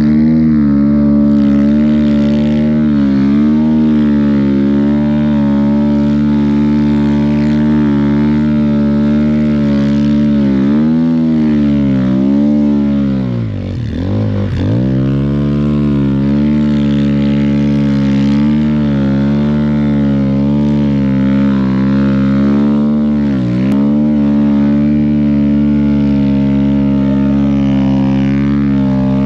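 Snowbike's dirt-bike engine running at high, steady revs under load in deep powder, the revs dipping and climbing back a few times, most deeply about halfway through.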